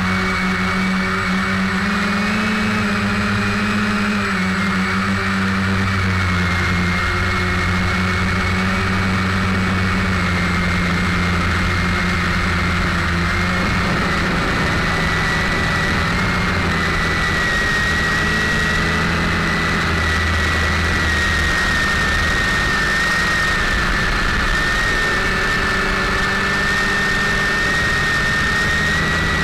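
Quadcopter's electric motors and propellers running steadily in flight, heard up close from the camera on board, a high whine over a low drone. The whine wavers a little and settles slightly lower in pitch in the second half.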